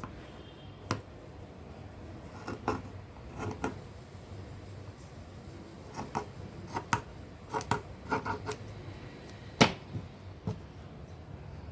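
Scattered light clicks and taps of small objects being handled on a table, with a cluster of them about two-thirds of the way through and one sharper knock near the end.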